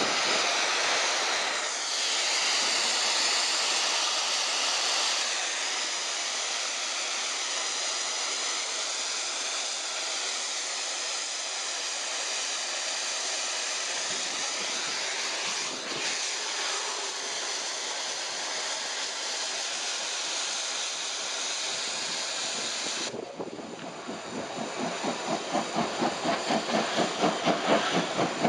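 Steady hiss of steam escaping from a standing steam locomotive. About three-quarters of the way through it breaks off, and a quick rhythmic beat grows steadily louder as a steam locomotive approaches.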